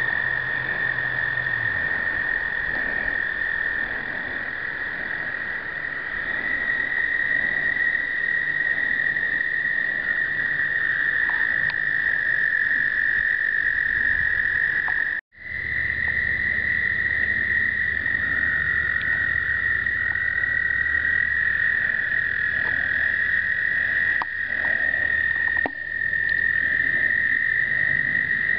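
Breeding chorus of male American toads: long, high musical trills overlapping into one unbroken sound. A second, lower-pitched trill joins now and then in the second half. The sound drops out for an instant about halfway.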